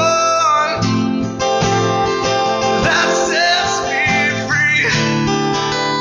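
Live acoustic music: strummed acoustic guitars with a man singing.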